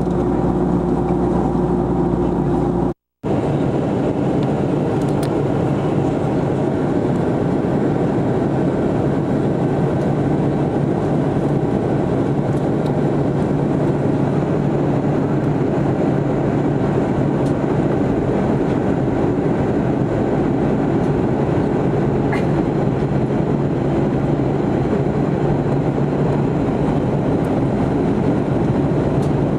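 Steady roar of an airliner's turbine engines heard from inside the cabin, with a steady hum under the noise. About three seconds in the sound cuts out for a moment, then resumes with a slightly lower hum.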